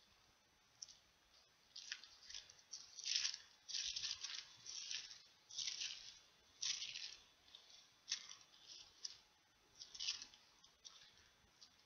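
Thin Bible pages being leafed through, a string of short papery rustles as the place in Romans is looked up.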